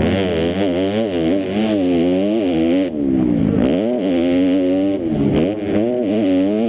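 Motocross bike engine revving hard on a practice lap. Its pitch repeatedly climbs and falls through the gears, with a deeper drop in revs about three seconds in before it climbs again.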